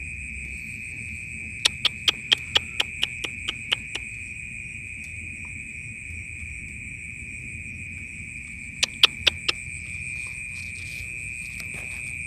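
A steady, high-pitched chorus of night insects. Over it come two runs of sharp clicks: about ten in quick succession, fading, starting about two seconds in, and five more near nine seconds.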